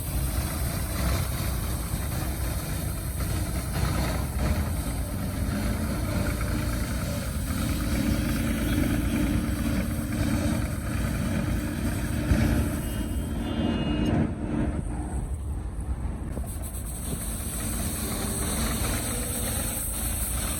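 Engine of heavy road-works machinery running steadily, with a short high tone about 13 seconds in.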